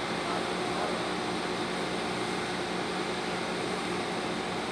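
TIG welding arc burning steadily on heavy-wall carbon steel pipe: an even hiss with a low hum underneath.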